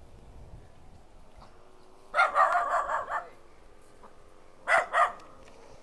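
A dog barking: a quick run of about five barks about two seconds in, then two more short barks near the end.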